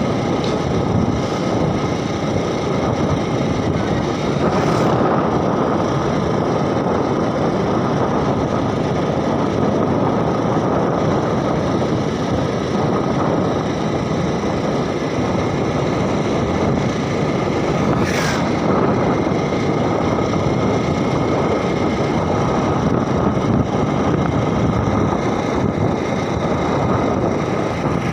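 A vehicle's engine running steadily with road and wind noise while travelling at a constant pace.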